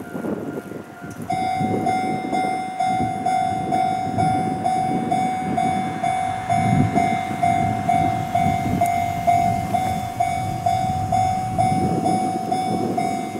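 Electronic railway level-crossing warning bell ringing a steady, evenly repeated tone about three to four times a second. It starts about a second in, over a fainter bell of higher pitch that stops partway through. An uneven low rumble runs beneath.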